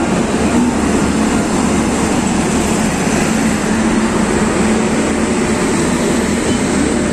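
Jan Shatabdi Express passenger coaches rolling slowly past along a station platform as the train pulls in. Their wheels and running gear make a steady rumble over a low hum.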